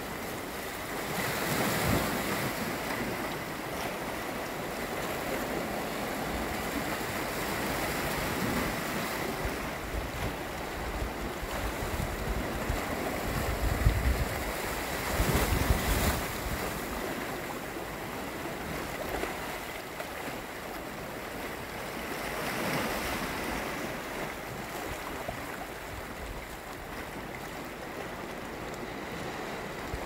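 Sea surf washing and breaking over dark volcanic rocks, a continuous rushing of water that swells in several surges and is loudest about halfway through.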